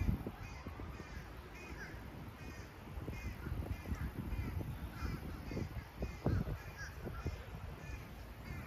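Repeated short, harsh animal calls, about two a second, over an uneven low rumble that swells about six seconds in.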